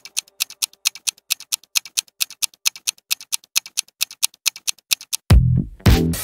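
Clock tick-tock sound effect marking a quiz countdown timer: fast, even ticks, about six a second, alternating louder and softer. About five seconds in, a loud, deep, bass-heavy musical sting cuts in as the countdown ends.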